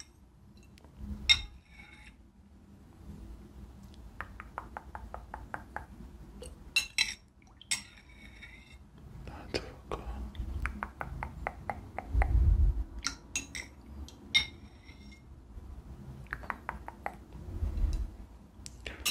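Metal spoon clinking against a bowl: sharp clinks with short high ringing and runs of quick taps as if stirring. Soft low thumps from handling, the loudest near the middle and near the end.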